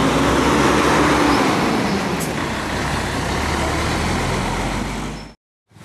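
Loud street traffic with a heavy vehicle's engine running close by. The sound cuts off suddenly about five seconds in.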